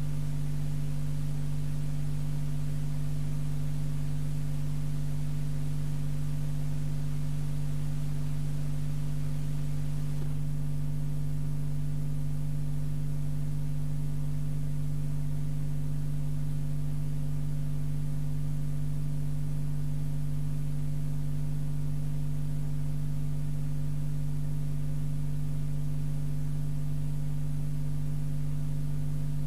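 Steady electrical mains hum: a buzz of several fixed tones over a hiss, with no change in pitch or level. The hiss becomes a little weaker about ten seconds in.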